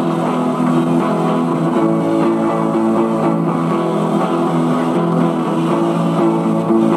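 Background music on the film's soundtrack, playing at a steady level.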